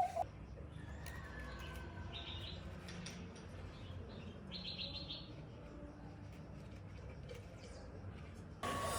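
Birds chirping faintly in two short bursts of rapid high chirps a few seconds apart, over a steady low hum. Near the end a louder sound with a steady high tone cuts in suddenly.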